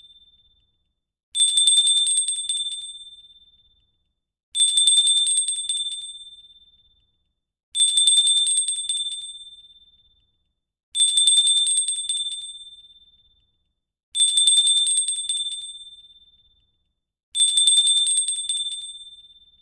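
Small brass hand bell rung briefly six times, about once every three seconds: each time a quick flurry of clapper strikes, then a high ring that fades out over about two seconds.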